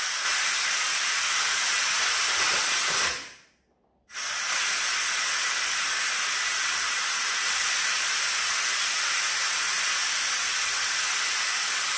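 Steam hissing out of a Philips electric pressure cooker's pressure-release valve as it is vented by hand after cooking. The hiss cuts out for about a second some three seconds in, then starts again and runs on steadily.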